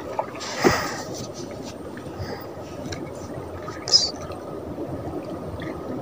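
Water lapping and trickling against the side of a small boat, with a light knock a little under a second in.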